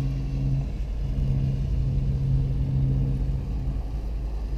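Boat engine running steadily under way: an even low drone with a strong hum, dipping briefly about a second in.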